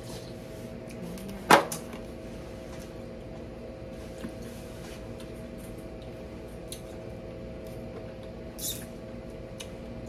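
Small tabletop noises of people eating seafood: one sharp knock about a second and a half in, a few faint clicks, and a brief hiss near the end, over a steady faint hum.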